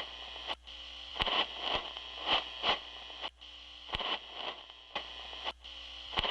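Old-recording static: a steady hiss broken by irregular sharp clicks and pops, with soft swelling crackle.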